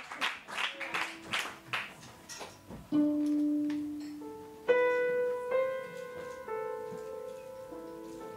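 A run of sharp taps, then a violin and an upright piano begin a slow duet about three seconds in: a held violin note, then sustained piano chords with bowed violin notes over them.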